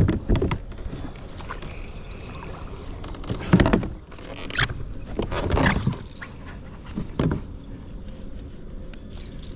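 Knocks, bumps and water splashes around a fishing kayak while a hooked fish is being fought, in about five separate bursts, the loudest about three and a half seconds in. A faint steady high tone runs underneath.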